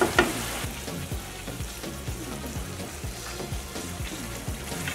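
Beef in adobo sauce sizzling and simmering in a nonstick frying pan as it is stirred with a wooden spatula, a few scrapes near the start. Quiet background music with a repeating bass line.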